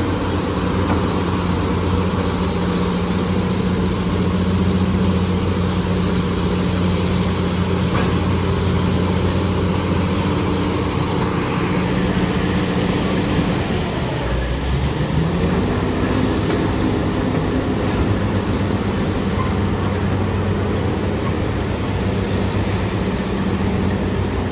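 BEML BD355 crawler bulldozer's diesel engine running steadily under load, with a thin high whine above it. A little past the middle the engine note drops briefly, then climbs back up and runs on steadily.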